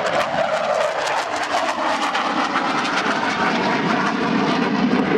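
F-4 Phantom's twin J79 turbojets at high power, a loud steady jet roar with a dense crackle, as the jet pulls up out of a high-speed low pass.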